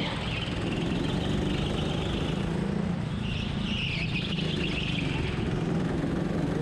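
Onboard sound of an indoor rental go-kart's engine running steadily as the kart takes a tight hairpin, with a higher hiss that swells for a couple of seconds in the middle.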